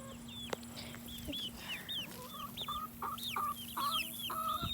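Chickens in a flock: young chicks peep in a steady string of short high calls, and from about two seconds in hens join with lower clucking that grows louder toward the end.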